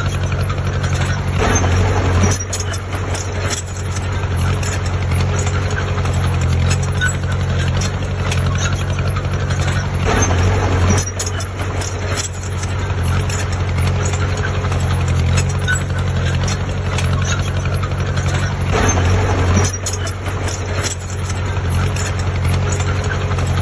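Diesel engine of heavy earthmoving machinery running steadily under load, swelling louder three times, about every eight to nine seconds, with light clattering over it.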